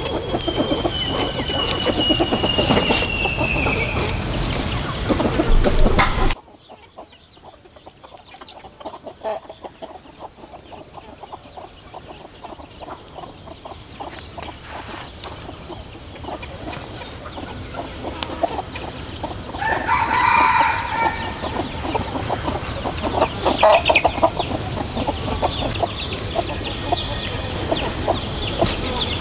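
Bare hands scooping and pressing loose earth: a run of small crumbling and patting sounds. Chickens are calling in the background, with the plainest call about two-thirds of the way through. The background is louder and noisier for the first six seconds, then drops suddenly.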